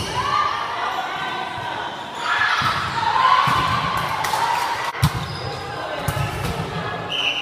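Volleyball rally in a gym: a few sharp smacks of hands hitting the ball, the clearest at the start and about five seconds in, with players' voices calling out in between, echoing in the hall.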